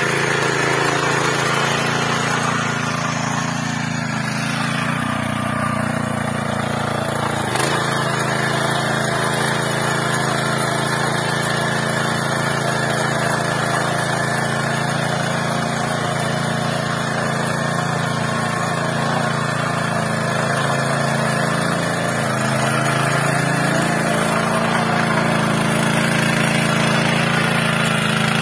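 Small 7 hp petrol engine of a walk-behind power weeder running steadily under load while its tines till wet paddy-field mud. The engine note shifts a little in pitch a few times.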